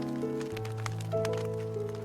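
Soft instrumental music with slow, held notes, over the scattered pops and crackles of a wood campfire.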